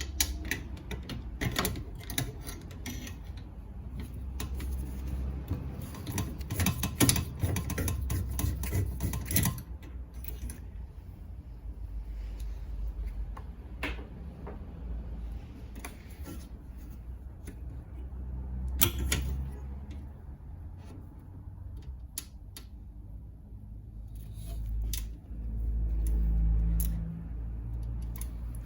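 Repeated clicks, taps and knocks of tools and parts being handled, dense for about the first ten seconds and then occasional, over a low rumble.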